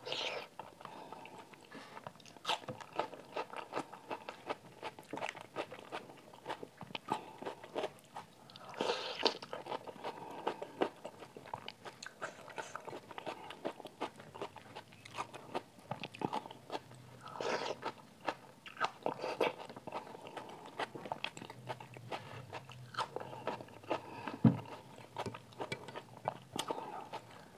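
Close-miked eating: a person chewing mouthfuls of rice and dal eaten by hand, heard as a dense, irregular run of short mouth clicks, with one sharper click near the end.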